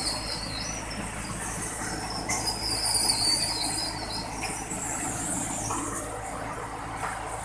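Portable concrete belt conveyor running over a steady low machine hum, with a high, wavering metallic squeal that comes and goes, loudest about two to four seconds in.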